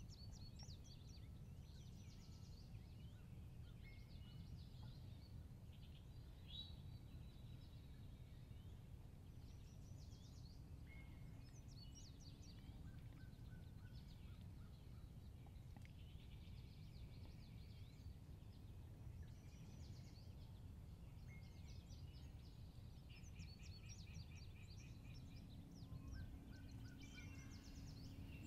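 Faint songbirds chirping and trilling, one short phrase after another, over a low steady rumble.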